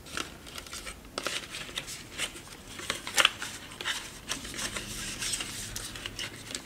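Cardboard and plastic packaging being handled: rustling, scraping and scattered short crinkles and clicks as a webcam is worked loose from its folded insert and tray.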